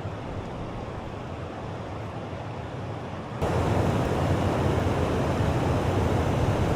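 Heavy flow of water pouring over a river spillway in high water, a steady rushing that gets abruptly louder about three and a half seconds in.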